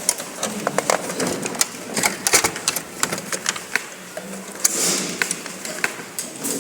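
Irregular clicks, taps and knocks of computer parts being handled and fitted into a desktop system unit.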